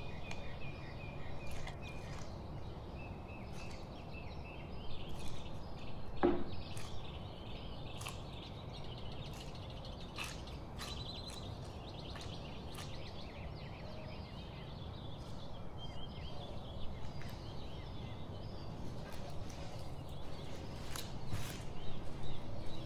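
Gloved hands kneading dough in a glass bowl: soft handling and squishing noises with occasional knocks against the bowl, over a steady background hiss with a few faint bird chirps. Over the last few seconds plastic cling film crinkles as the dough is set on it.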